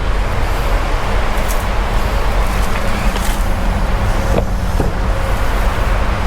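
A loader's engine idling steadily: a constant low running drone. A few faint metallic clicks sit over it.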